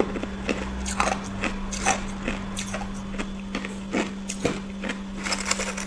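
Freezer frost being chewed close to the microphone: soft, irregular crisp crunches every half second or so, over a steady low hum.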